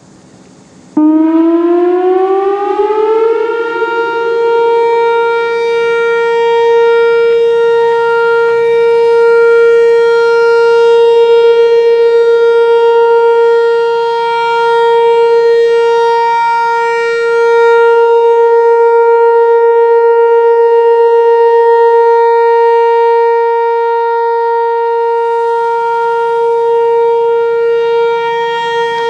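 Whelen Vortex R4 outdoor warning siren starting up for its weekly test: it winds up in pitch about a second in, then holds a steady alert tone that swells and fades slowly in loudness.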